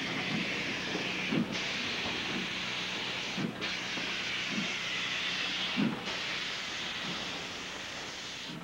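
Steam locomotive hissing steadily, the hiss dipping briefly every two seconds or so, with soft low thuds underneath.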